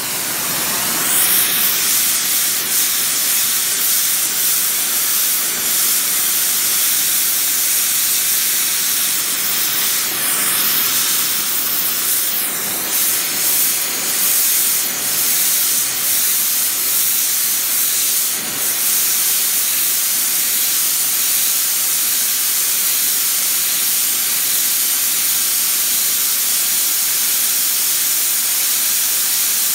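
Gas torch flame hissing steadily as it heats a steel strip red-hot for bending.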